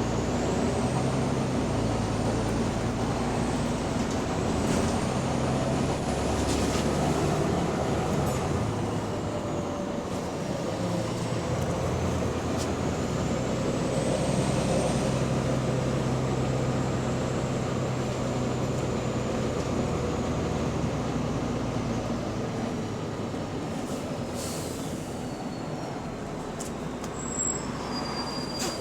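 Volvo double-decker bus engine running under way, with a thin high whine that rises and falls as it drives. The bus has an exhaust leak.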